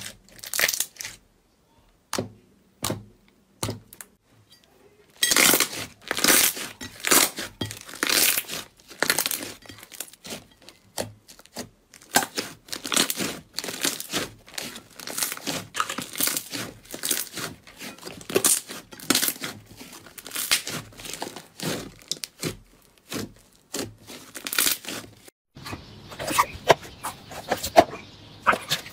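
Hands squeezing and stretching soft pink slime, giving irregular squishy pops and crackles as air pockets burst: sparse at first, then a dense run from about five seconds in. Near the end the sound changes as slime is worked in a tub of water, a steady hiss with wet clicks over it.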